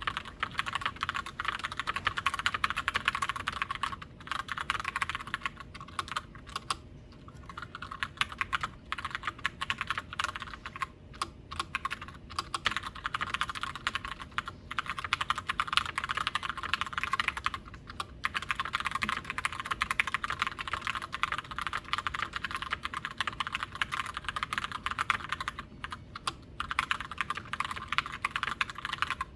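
Steady fast typing on a Glorious GMMK White Ice TKL mechanical keyboard with Gateron Brown tactile switches: a dense stream of key clicks and clacks, broken by a few short pauses.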